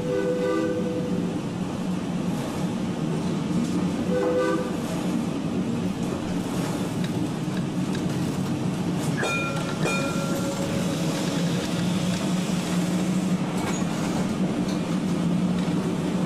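W2-class tram streetcar running along its track, with a steady hum and rolling wheel noise. Two short horn-like warning tones sound in the first five seconds, and a brief high squeal comes about nine seconds in.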